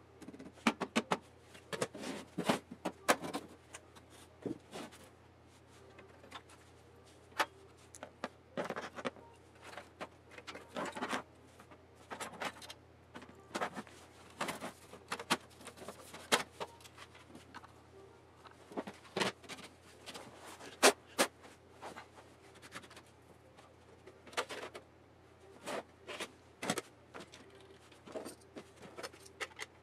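Irregular clicks, taps and knocks from handling a DVD drive and the sheet-metal parts of a desktop PC case.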